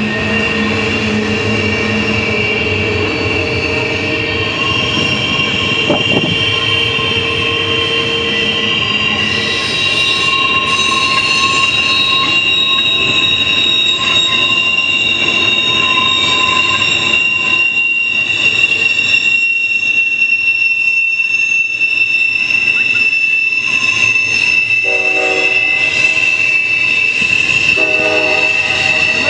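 Double-stack intermodal freight train rolling past, its wheels giving a steady high-pitched squeal over the rumble of the cars. A few short, lower tones come in near the end.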